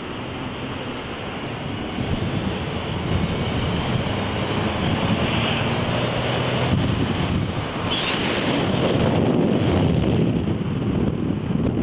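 Wind rushing over the camcorder's microphone, with the road and engine noise of a moving vehicle beneath it; the rush grows louder about two seconds in.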